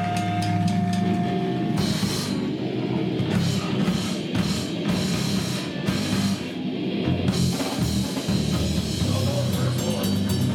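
Live grindcore band playing heavy distorted electric guitars over a drum kit. A held guitar chord with a steady high tone opens, then the drums and cymbals come in with the full band about two seconds in.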